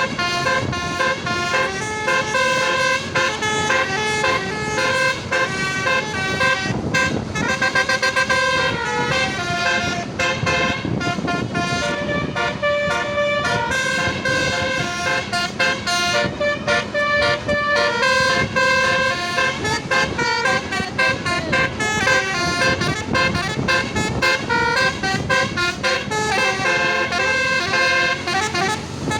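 Basuri telolet bus air horns playing a continuous melody, several horn trumpets sounding steady notes that step from one to the next without a break.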